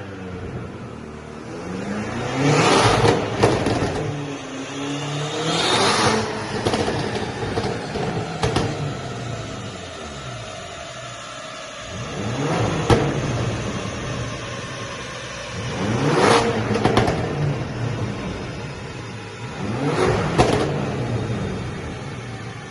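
BMW X6 M's 4.4-litre twin-turbo V8 revved about five times. Each rev falls back with crackles and pops in the exhaust on the overrun, from a custom pops-and-bangs tune.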